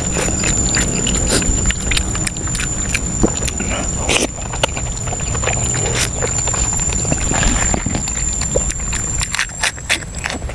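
Close-miked wet chewing and lip-smacking of someone eating soft stewed pork leg, a quick, uneven run of sharp clicks and smacks. A steady high-pitched whine runs behind it and shifts slightly near the end.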